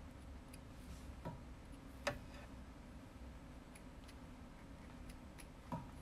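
Faint handling noise of hands working solder flux paste onto a coax cable's braided shield: scattered small clicks and taps, with a sharper click about two seconds in and another near the end, over a faint steady low hum.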